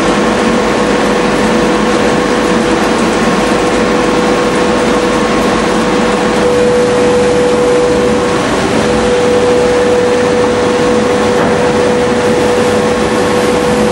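Floating fish feed extruder plant running: loud, steady machine noise with a constant whine.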